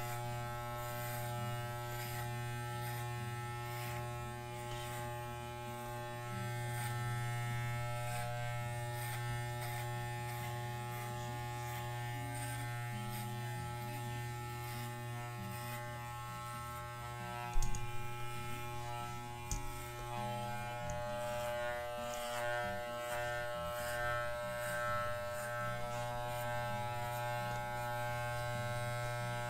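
Corded electric dog clippers buzzing steadily as they are run over a miniature schnauzer's coat, with a brief knock a little past halfway.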